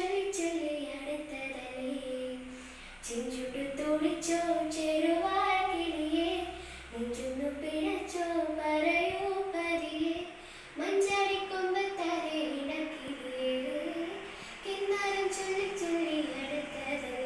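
A girl singing solo and unaccompanied, a melody in phrases of a few seconds each, her pitch gliding and wavering.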